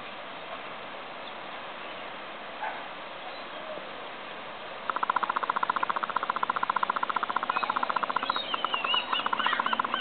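Steady outdoor hiss of wind and water, then from about halfway birds calling in a fast chattering trill, with higher, quick chirps joining near the end.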